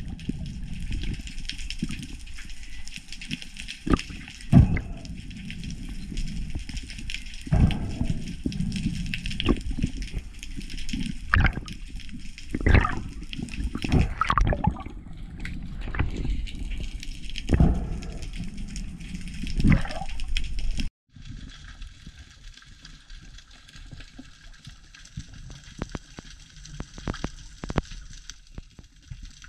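Underwater sound picked up by a diving camera: water rushing and sloshing, with irregular knocks and thumps. About two-thirds of the way through it cuts to quieter underwater ambience with a steady hiss and faint crackling clicks.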